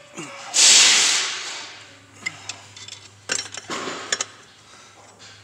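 A loud hissing rush starts about half a second in and fades over a second or so. After it come scattered light metallic clicks and clinks from an open-end wrench turning the nut of a homemade injector-cup puller.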